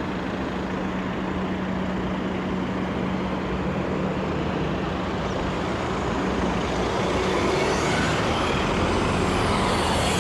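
City street traffic with a heavy vehicle's steady engine hum. It grows louder toward the end as a vehicle draws near.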